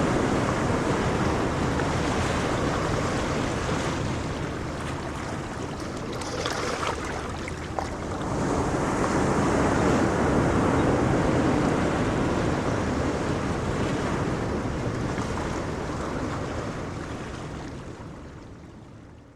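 Ocean waves breaking and washing up a beach: a steady rushing surf that ebbs, swells again with the next wave about eight seconds in, then fades out near the end.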